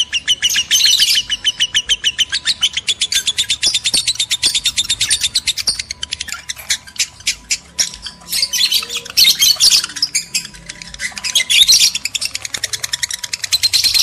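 Lovebirds in breeding condition chattering: fast, continuous streams of high chirps broken by louder, harsher bursts of squawking every few seconds.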